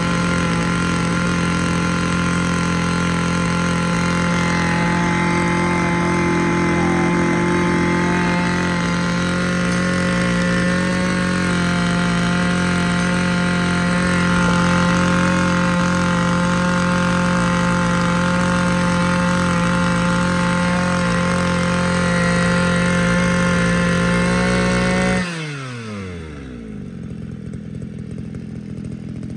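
Shindaiwa S231 brush cutter's 23cc two-stroke engine held at high revs with a steady high-pitched note. About 25 seconds in, the throttle is let go and the revs fall quickly; it runs low and quieter for a few seconds, then cuts out right at the end.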